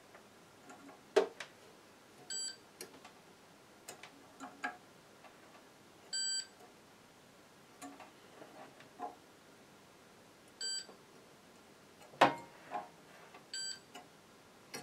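Digital multimeter giving four short beeps as its probes are touched to the welder's rectifier diodes, testing them for a short circuit. Scattered clicks and knocks of the probes being handled come between the beeps, the loudest about twelve seconds in.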